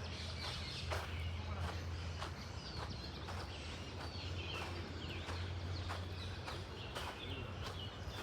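Small birds chirping in short repeated notes over a run of sharp steps, about two a second, with a steady low hum underneath.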